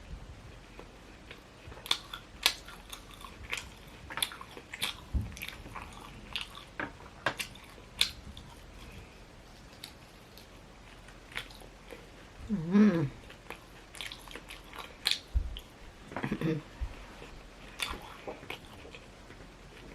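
Close-up chewing and biting of a meal: wet mouth clicks and lip smacks. Twice, about two-thirds of the way in, there is a short hum-like voice sound from the eater, the first one the loudest.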